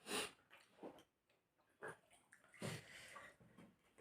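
Near silence: room tone with a few faint, short sounds.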